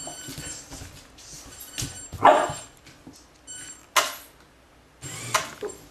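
Golden retriever puppy giving short barks, the loudest a little over two seconds in, among a few sharp clicks and knocks.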